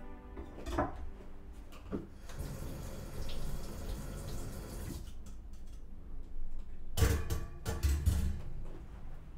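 Kitchen tap running into a stainless-steel sink for a few seconds as something is rinsed under it. Near the end come several loud clunks and knocks of things being handled and set down at the sink.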